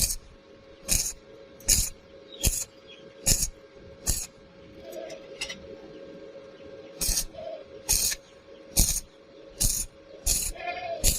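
Background music with a steady beat of sharp percussive hits over a held tone; the beat stops for a few seconds midway, then comes back.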